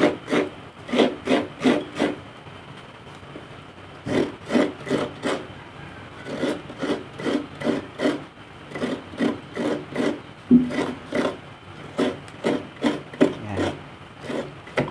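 Fresh coconut being grated by hand: a coconut half scraped in quick repeated rasping strokes, about three a second, with shreds falling into a bowl. The scraping stops for about two seconds after the first two seconds, then runs on in steady runs of strokes.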